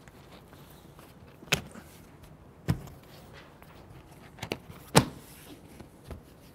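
A few sharp plastic clicks and snaps, five or so spaced out, the loudest about five seconds in, as a Bestop Trektop NX Glide soft top's window panel and retainers are worked and pressed into place by hand.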